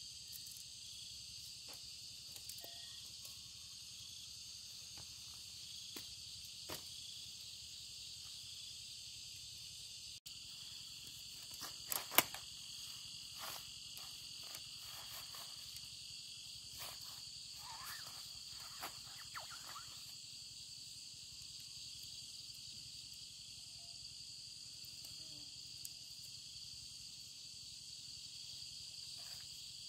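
Steady high-pitched chorus of insects, with scattered sharp clicks and light knocks of metal tent-pole sections being slotted together; the loudest is a pair of clicks about twelve seconds in, and a run of smaller knocks follows a few seconds later.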